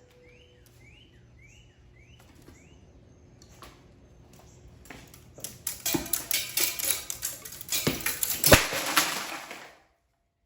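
Hampton Bay Gazebo ceiling fan switched on while hanging from a makeshift wire mount: a repeating rising squeak about twice a second at first, then growing clattering and banging as the whole fan turns on its mount, with a heavy crash about eight and a half seconds in, the sign of the fan coming down. The sound cuts off suddenly near the end.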